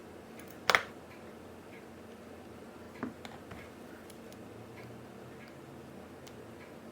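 Small sharp clicks of watchmaker's tools and parts as the movement holder is removed: one louder click about a second in, a smaller one around three seconds, and faint light ticks between.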